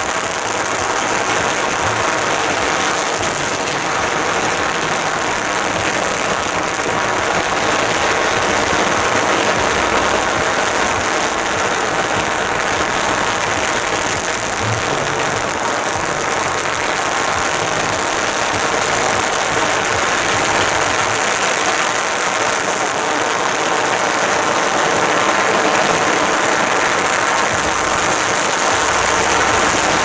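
Steady, dense street noise of a procession crowd, loud and even throughout with no single sound standing out.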